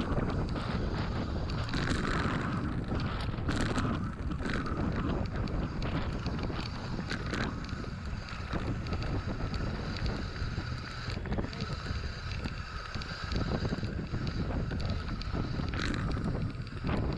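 Wind buffeting the microphone over the rumble of a mountain bike's knobbly tyres rolling fast down a gravel track, with clicks and knocks from the bike as it hits bumps, several close together in the first few seconds.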